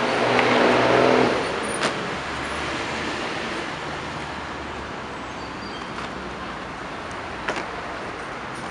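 Steady road traffic noise from passing cars, with a person's voice in the first second and two short sharp knocks, one about two seconds in and one near the end.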